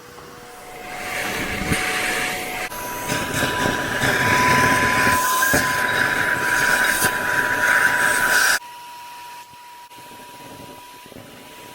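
Vacuum cleaner running with a steady motor whine that steps up in pitch twice, under a loud rushing suction noise as it sucks up slime. The rushing cuts off suddenly about two-thirds of the way through, leaving the quieter whine.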